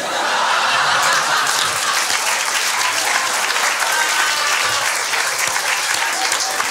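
Audience applauding and laughing at a punchline: steady, dense clapping with a few voices mixed in, easing slightly near the end.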